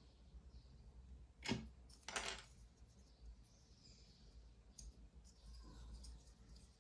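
Two brief handling noises from small hard objects: a sharp click about a second and a half in, then a short rattle half a second later, against near-silent room tone.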